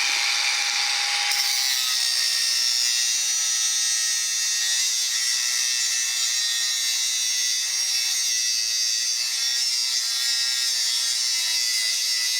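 Angle grinder running up to speed, then its disc cutting into a metal bar with a steady, high-pitched grinding hiss over the motor's whine. The cut becomes noticeably harsher about a second in, once the disc bites into the metal.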